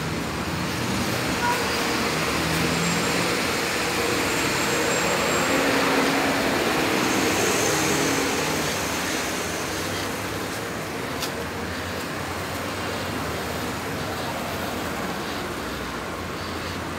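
Steady road traffic noise, a continuous rush of passing vehicles that swells to its loudest around the middle and then eases.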